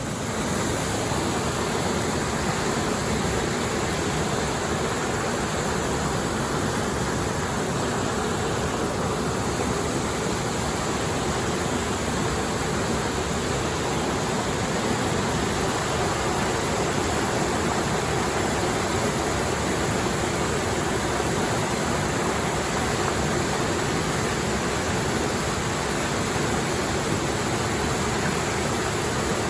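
Water of a small waterfall on a clear mountain stream, rushing and splashing steadily.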